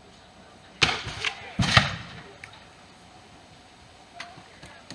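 Two gunshots about three-quarters of a second apart, each with a short echo, the second the louder: reenactors' muskets firing blank charges in a mock Civil War skirmish.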